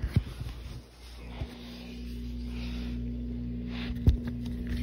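Handling noise from toy figures and the phone being moved about: soft rubbing and a few knocks, the loudest about four seconds in, over a steady electrical hum.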